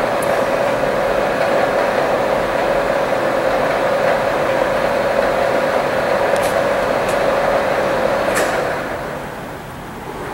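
Blanchard No. 11-16 rotary surface grinder running under power with a steady hum. About eight seconds in a switch clicks and the machine winds down, with another click near the end as a control button is pressed.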